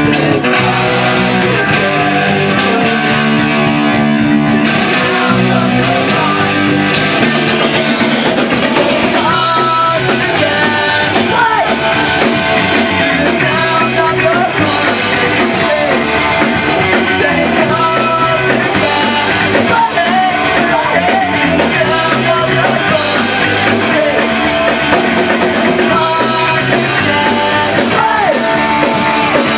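Punk rock band playing live in a rehearsal room, with distorted electric guitar, bass and drums. Sung vocals come in about a third of the way through.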